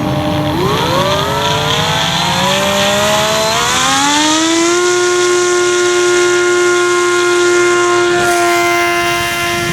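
Radio-control model F7U Cutlass's motor being throttled up: its whine climbs in pitch over about five seconds, then holds at a steady high-pitched whine.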